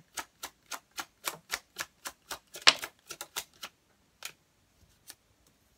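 A deck of tarot cards being overhand-shuffled: quick, regular clicking of card packets slapping together, about four a second, with one sharper snap about two and a half seconds in. The shuffling stops after about three and a half seconds, followed by a single click a little after four seconds.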